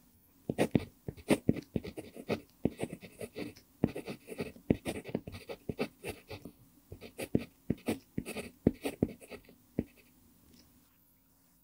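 Pentel PG5 mechanical pencil with an mpingo wood barrel writing Korean characters on lined paper: quick, scratchy pencil strokes in short clusters, falling quiet near the end as the pencil lifts.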